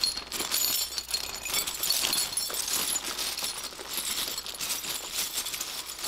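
Clear plastic bags crinkling while hands rummage through loose zinc-plated steel nuts, bolts and washers, the hardware clinking steadily in many small metallic clicks.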